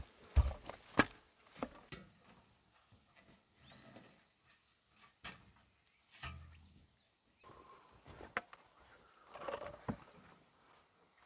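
A few scattered knocks and clicks, with faint bird chirps here and there.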